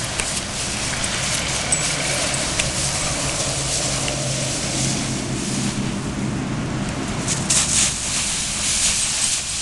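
Dry fallen leaves rustling and crackling as two dogs nose and step through a deep leaf pile, with a steady low engine hum underneath in the first half.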